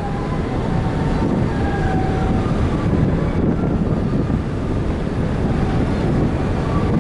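Steady wind buffeting the microphone on the deck of a car ferry under way, a low rumble with the ship's running noise beneath it.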